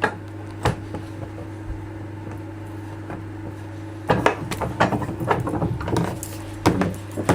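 A couple of knocks, then a few seconds in a low angle block plane takes a rough, scraping stroke along a board, ending in further knocks. The blade is set a little too coarse.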